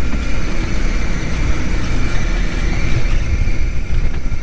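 Fishing boat's engine running with a steady low rumble, a faint high steady whine above it.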